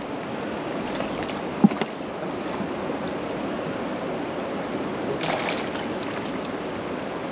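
Steady rush of river water flowing past a rocky bank, with a single short knock about one and a half seconds in and a brief louder swell of noise about five seconds in.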